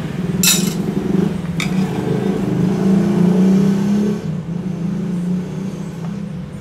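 A motor engine running steadily, wavering slightly in pitch and easing off near the end. Two sharp metallic clicks, about half a second and a second and a half in, come from aluminium pipe being handled against a metal bending jig.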